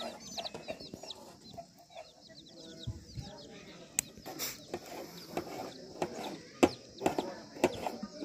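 Chicks peeping in quick, high rising chirps for about the first second and a half. From about four seconds in, irregular sharp clicks and knocks of a knife cutting tomatoes on a metal tray, one knock louder than the rest past the middle.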